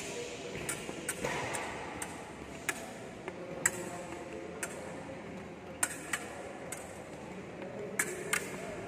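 Fencing blades meeting in a coach's lesson: a dozen or so sharp metallic clicks and taps at irregular intervals, over a low steady hum.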